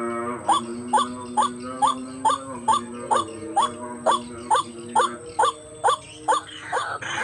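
White-breasted waterhen (ruak-ruak) calling, a fast run of short, rising notes about two a second. Beneath it a steady droning tone stops about five seconds in.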